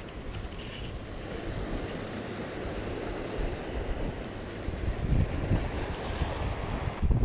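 Ocean surf washing over lava rocks, with wind buffeting the microphone in low rumbling gusts that are strongest about five seconds in and near the end.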